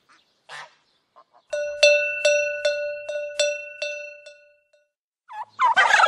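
Cowbell rung about eight times in quick succession, each strike ringing on: the page-turn signal. Near the end a turkey gobbles.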